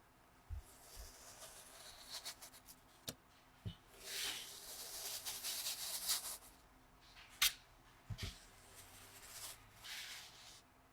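Kinetic sand being worked: soft, grainy rustling and scraping in irregular strokes, the longest about four seconds in. A few sharp clicks and taps come in between, the loudest about two-thirds of the way through.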